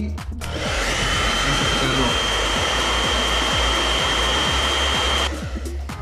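Handheld hair dryer blowing air through a washed longboard wheel bearing to dry out the water. It runs for about five seconds with a steady high whine, then cuts off suddenly near the end.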